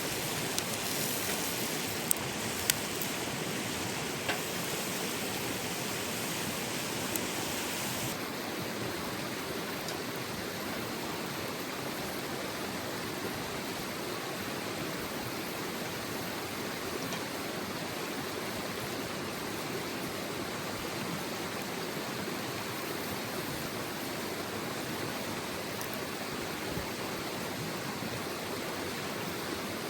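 Mountain river flowing: a steady rushing of water, with a few sharp clicks in the first several seconds.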